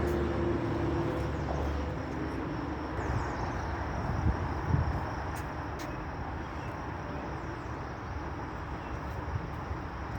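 Steady outdoor rumble of motor-vehicle traffic. A low engine hum fades away over the first two seconds.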